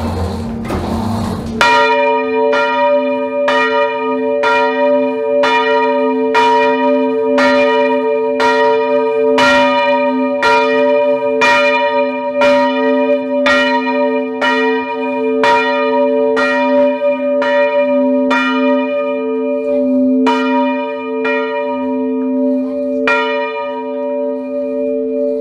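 Swinging bronze church bell tuned to b′, its clapper striking in a steady run a little over once a second from about two seconds in, with a deep hum ringing on between the strokes.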